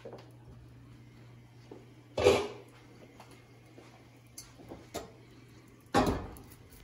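Cookware being shifted on a gas range: two loud clanks with a short ring, about two seconds in and again near the end, with a few light clicks between.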